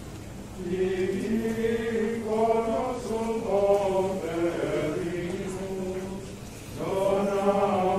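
Slow, unaccompanied sung chanting in long held notes. It comes in phrases, with a short break about half a second in and another a little after six seconds.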